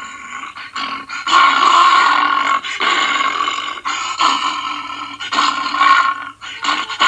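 Cartoon Sea Bear growling and roaring in a string of rough, drawn-out roars separated by short breaks. The longest and loudest roar comes about a second in.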